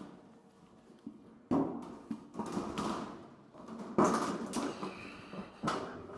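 Thin stainless steel sheet-metal tank cladding being pulled off by hand: three sudden bangs of the flexing sheet, each fading over about a second, the loudest about four seconds in.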